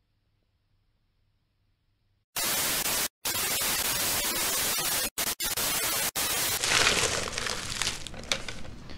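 Near silence for about two seconds, then loud television static hiss that cuts out briefly a few times over about four seconds, then fades to softer, uneven noise near the end.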